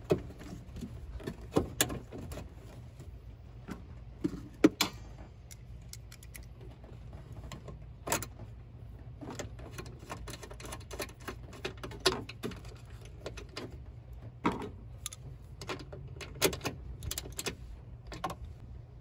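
Scattered clicks, knocks and light clatter of plastic engine-bay parts being handled and fitted by hand, over a steady low hum.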